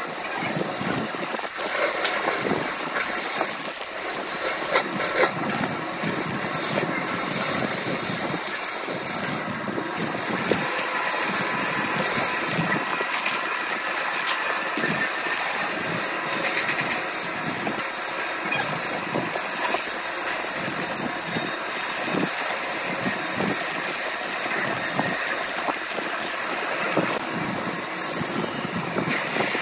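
Wood lathe running while a hand-held turning chisel cuts into a spinning glued-up blank of coloured wood layers: a steady scraping hiss of the cut over the lathe's motor, broken by irregular clicks and knocks, most often in the first several seconds.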